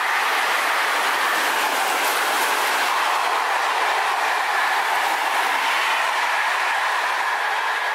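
Intermodal freight train's wagons rolling past at speed: a loud, steady rush of wheels on rails.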